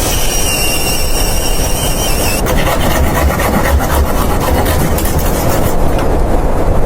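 Strong blizzard wind blowing, a loud steady rush with a deep rumble, with a thin whistling tone over the first couple of seconds.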